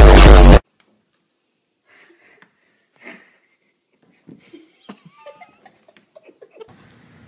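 Loud electronic dance music with a heavy bass beat cuts off suddenly just after the start. Faint short wheezy sounds and a brief squeak follow, with faint room noise near the end.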